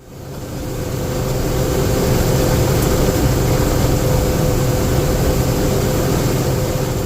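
Combine harvester running during soybean harvest: a steady engine and machinery hum with a low rumble and a steady mid-pitched tone, fading in over the first second.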